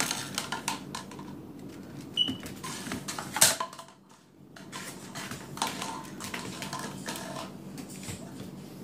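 Puppy's claws clicking and skittering on a vinyl tile floor in quick irregular taps as it scrambles after a plastic pudding cup, with one sharper knock about three and a half seconds in.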